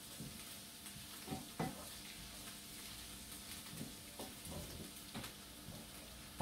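Onions, garlic and ginger sizzling faintly in a frying pan while a wooden spoon stirs them, with a few light knocks and scrapes of the spoon against the pan.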